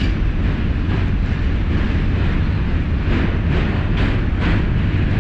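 New York subway train running across the steel Manhattan Bridge: a loud, steady rumble of wheels on rails, with a few sharper rattles from about three seconds in.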